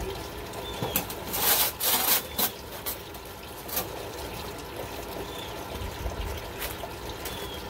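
A metal shovel scrapes and scoops burning coals out of a steel fire-pit bowl, with a couple of loud scrapes about a second and a half in and scattered clinks and crackles after. Birds chirp briefly now and then.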